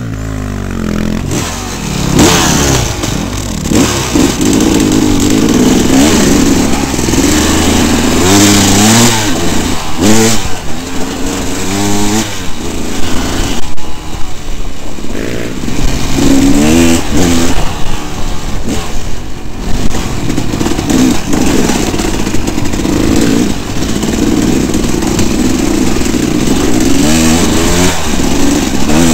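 Dirt bike engine running hard under changing throttle, its pitch rising and falling again and again as the rider accelerates, backs off and shifts.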